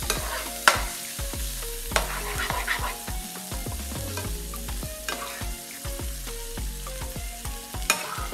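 Swordfish steak sizzling in butter and green-seasoning marinade in a nonstick skillet while a metal slotted spoon scrapes and clinks against the pan, basting the fish with the sauce. The sharp clinks come several times, loudest about a second in and near the end.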